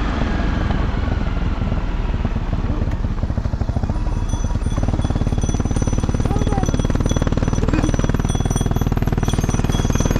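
Honda CRF250 Rally's single-cylinder four-stroke engine running steadily under way, a rapid, even firing pulse.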